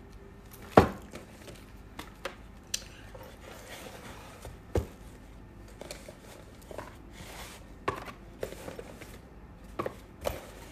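Cosmetic cream jars and small product boxes being handled and set down in a cardboard box: scattered knocks and taps, the loudest about a second in, with light rustling between them.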